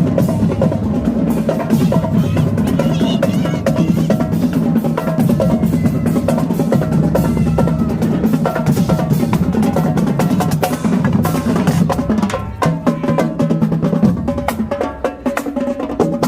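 High-school marching band playing loudly, its drumline of snare drums and bass drums pounding out a driving beat under sustained low brass, with a short drop in volume near the end.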